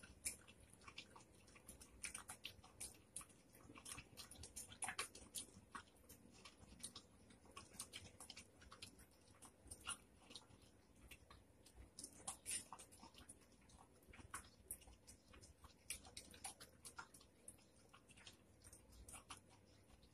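A dog eating soft food from a stainless steel bowl: faint, irregular chewing and licking clicks that come in uneven spurts.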